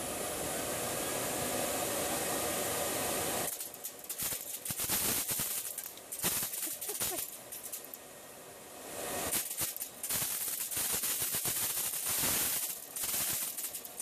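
Electric blower running with a steady rush of air. About three and a half seconds in, a rapid clatter of many hard clicks and knocks starts as small projectiles fed into the blower rattle in its housing and are flung out. The clatter comes in clusters, eases off briefly past the middle, then picks up again.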